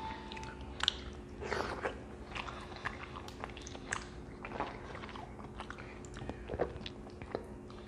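Close-up eating sounds of boiled crawfish: chewing and lip-smacking, with small irregular clicks and cracks from the shells being peeled.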